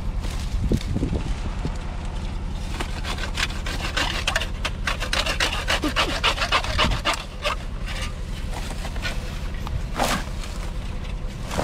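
A hand tool rasping against wood or ground in a fast run of strokes, several a second, strongest from about three to seven seconds in, with a single sharper knock near the end. A steady low hum runs underneath.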